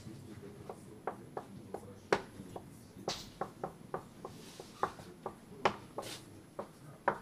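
Felt-tip marker writing and drawing: a string of irregular short taps and scratchy strokes as the tip meets and leaves the surface, the sharpest about two seconds in and again near six seconds.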